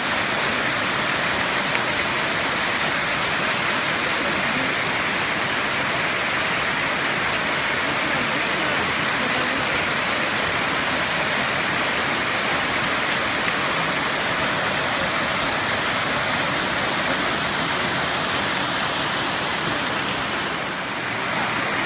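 Waterfall's falling water rushing, a loud, steady noise that dips slightly shortly before the end.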